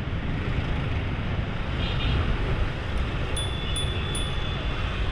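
A small bell struck three times in quick succession, about three seconds in, and left ringing for a moment and a half. Under it is a steady rumble of wind noise and road noise.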